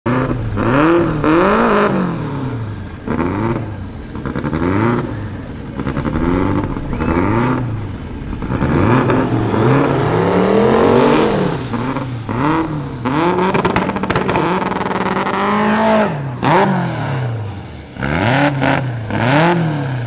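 Drag race car engines revved in repeated short throttle blips, with a longer rev carrying a high rising and falling whine about halfway through, and then a rev held steady for a couple of seconds.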